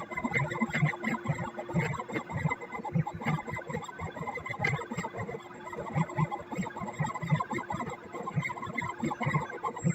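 CNC pen plotter's stepper motors running through many short, irregular moves as it draws, with a faint steady hum underneath.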